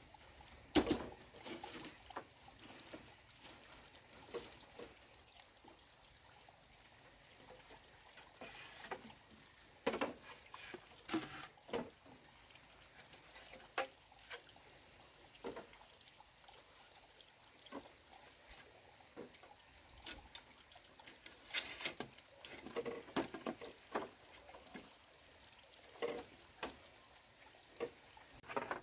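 Scattered light knocks and clatters at irregular intervals, with a quiet background between them.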